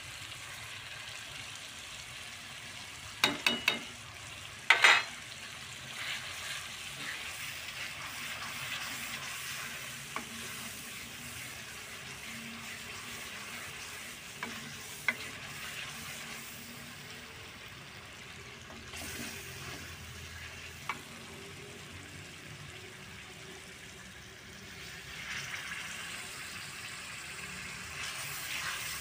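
Onions and spices frying in oil in a metal pot: a steady sizzle, with a spoon stirring the masala. A little over three seconds in come three quick metal clinks, then a louder knock against the pot. The sizzle grows louder near the end.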